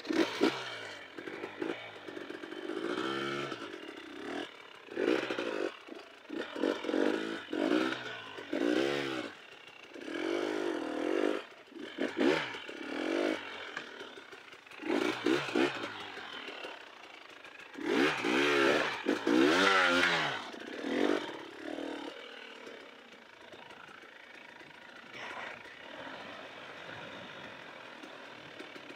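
Dirt bike engine revving up and falling back over and over as the bike is ridden along a trail. For the last several seconds it runs more steadily and more quietly.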